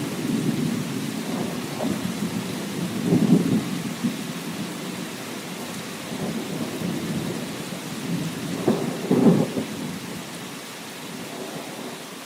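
Steady rain with rolling thunder: low rumbles swell about three seconds in and again, louder, around nine seconds, then the storm eases off toward the end.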